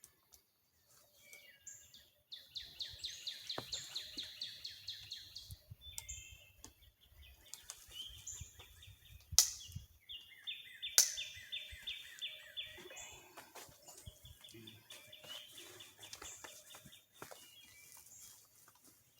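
Wild songbirds singing: several rapid trills of repeated notes, with two sharp knocks about a second and a half apart near the middle.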